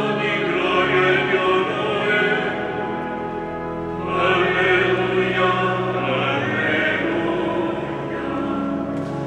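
A choir singing a slow sacred chant, with long held notes that change in steps.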